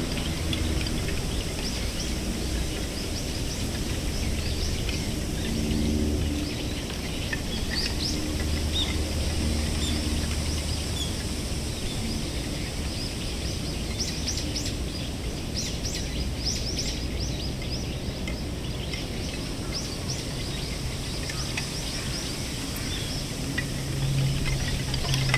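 Wooden ema votive plaques on a shrine's hanging stand clattering lightly as the wind sways them, with many small high ticks, busiest in the middle of the stretch, over a steady wind-like hiss. A low steady hum comes and goes in the first ten seconds.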